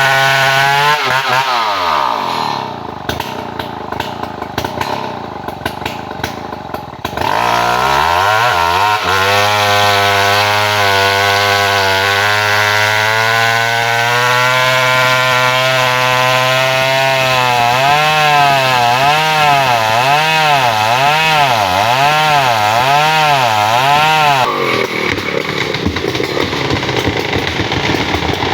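Two-stroke chainsaw engine dropping to a lower speed about a second in, then revving back up after several seconds and running at high speed. Later its pitch swings up and down about once a second before it settles into a rougher, noisier run near the end.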